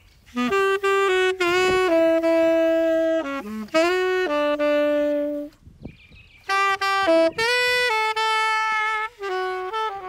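Unaccompanied saxophone playing a slow melody in separate phrases of held notes, with short pauses between them.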